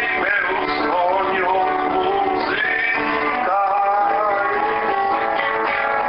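Acoustic guitar music, with a melody line over it: held notes that slide up into each other.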